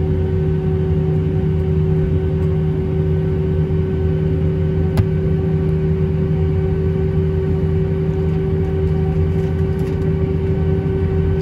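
Cabin sound of an Airbus A319-132 taxiing, heard from a seat over the wing: its IAE V2500 engines at taxi power make a steady droning hum with a constant mid-pitched tone. There is one short click about halfway through.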